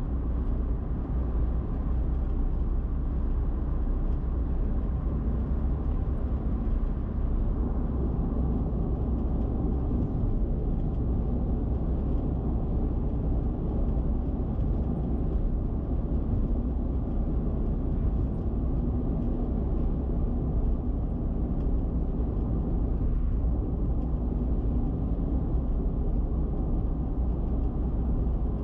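Car cruising at expressway speed: steady road and wind noise, mostly low rumble, with no change through the stretch.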